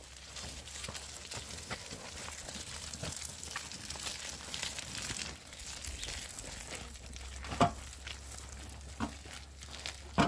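A wheelbarrow loaded with hollow concrete blocks is pushed over a muddy dirt path, with the scuffing of footsteps. A few short, sharp knocks come in the second half, the blocks and barrow jolting.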